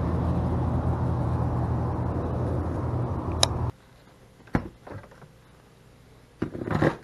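A steady outdoor rumble with a low, even hum, which cuts off suddenly a little over halfway through. Then a few light plastic clicks and knocks as a lidded blender cup is handled and set onto its blender base; the blender does not run.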